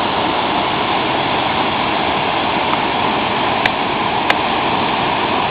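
Waterfalls rushing steadily, an even, unbroken water noise, with two light clicks at about three and a half and four seconds in.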